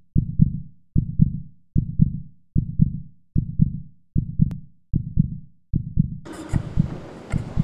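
Heartbeat sound effect: a steady low lub-dub, each beat a double thump, repeating about every 0.8 seconds (roughly 75 beats a minute). A little past six seconds a steady hiss of room ambience comes in under the beats.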